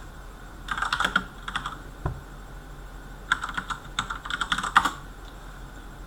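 Typing on a computer keyboard: two quick runs of keystrokes, one about a second in and a longer one past the middle, with a single soft knock between them.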